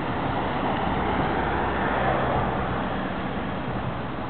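Steady street traffic noise: a continuous rumble and tyre noise from passing cars.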